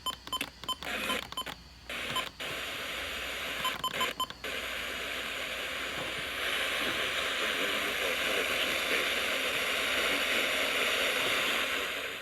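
Radio receiver static: short clicks and little beeping tones as the signal breaks up, then a steady hiss from about four seconds in, a little louder from about six seconds, that cuts off suddenly at the end.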